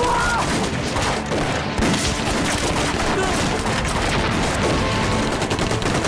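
Sustained gunfire of a battle: many rifle shots overlapping with hardly a break. A man shouts near the start.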